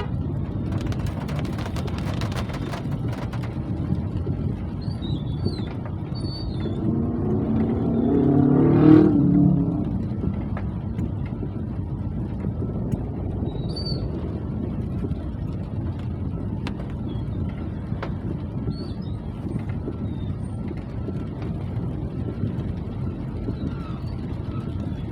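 Steady low rumble of road traffic, with one vehicle passing close by about eight to ten seconds in, its sound swelling and then fading. Faint bird chirps come now and then.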